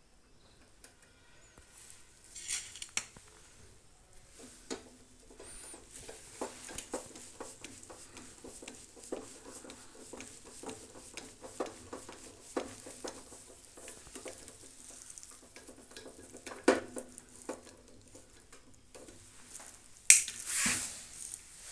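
Metal clicking and clinking of a spanner working the two nuts that fasten a microwave oven's magnetron to the cavity, a run of small, quick clicks with a sharper knock, then a louder scraping clatter near the end.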